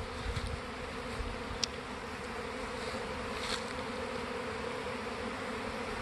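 Steady hum of a honey bee swarm in flight around the hives. It is a colony making a practice swarm, a sign that it is getting ready to swarm for real.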